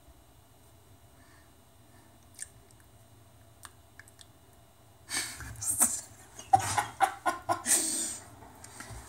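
Near quiet with a couple of faint clicks, then about five seconds in a man starts laughing hard, in quick loud gasps of breath with a few voiced notes, for about three seconds.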